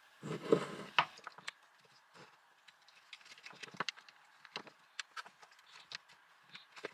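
A cordless angle grinder's parts being handled during reassembly. A brief scraping rustle comes near the start, then scattered light clicks and taps of plastic and metal parts.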